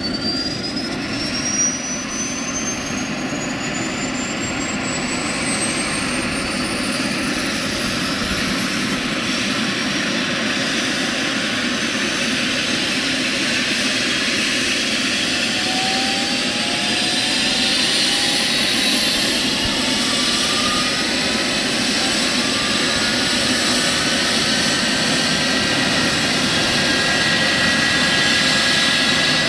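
Eurocopter EC135 helicopter's twin turbine engines and rotors running up on the ground before lift-off: a turbine whine climbing slowly in pitch, with more rising tones joining about halfway through and the overall sound growing gradually louder. There is a brief bump about two seconds in.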